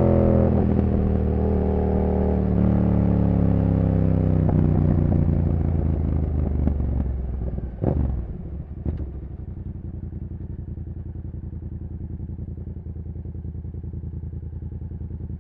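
2015 Yamaha MT-07's CP2 parallel-twin engine through a full race exhaust, slowing down on engine braking with one downshift. Two sharp knocks come a little past halfway as the bike comes to rest, and the engine settles to a quieter, steady idle.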